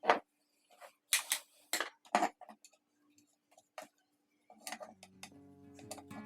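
A few sharp clicks and clinks of small hard objects being handled, then background music coming in about four and a half seconds in.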